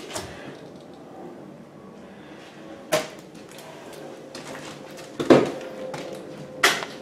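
Three sharp knocks or bumps, the one about five seconds in the loudest, with a faint steady tone underneath.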